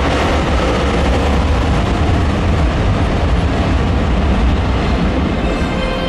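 Sukhoi Su-35's twin jet engines running at high power: a loud, steady, rumbling noise, heaviest in the low end.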